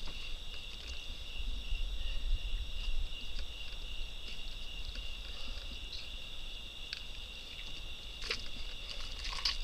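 Steady chorus of night-calling insects, two high even tones that never break, over a low rumble. A couple of faint clicks come near the end.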